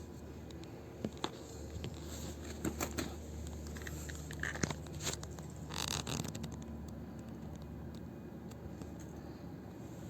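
Small metal handling sounds from a cable bike lock and its key: scattered clicks and scrapes, with a short rasping noise about six seconds in, over a steady low hum. The lock's keyhole is rusted, so the key will not go in or come out freely.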